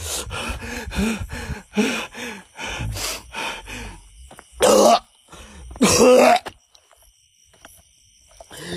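A man's wordless, strained vocal sounds of distress: a string of short throaty grunts and coughs, then two loud, longer groaning cries about five and six seconds in, and another just at the end.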